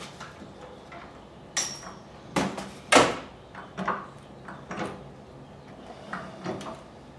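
A handful of short knocks and clicks from parts being handled at the engine mount where the Honda CX500's engine meets the frame, the loudest about three seconds in.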